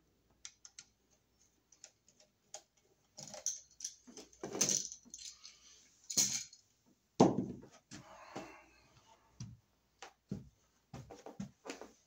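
Handling noise: scattered light clicks and taps, with a few louder knocks about four to seven seconds in, from handling a screwdriver and a light switch's metal hardware and moving the camera.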